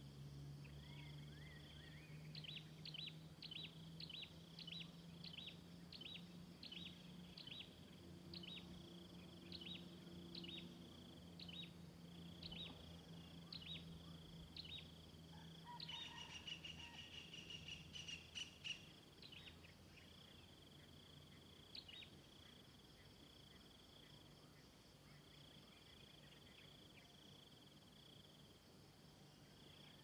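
Birds calling over a steady high insect trill. One bird repeats a short, sharp, high call about twice a second for some ten seconds. About halfway through there is a short burst of busier chirping.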